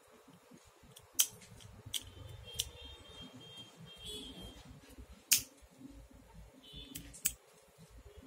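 A handful of sharp, separate clicks from hands working macrame cord and small tools, the loudest about a second in and about five seconds in.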